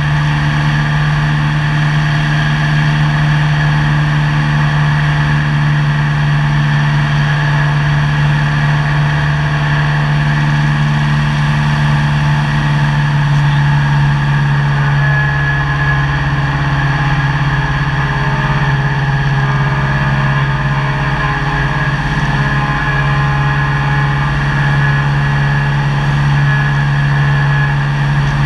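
Cessna 172's piston engine and propeller running steadily in flight, heard from inside the cockpit as a constant loud drone with a strong low hum.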